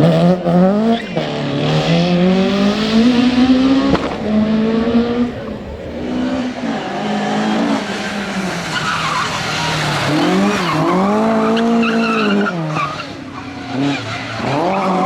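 Rally car engine revving hard, its note climbing in steps through the gears, then dropping as it lifts off, and rising and falling again, with tyres skidding on the stage surface.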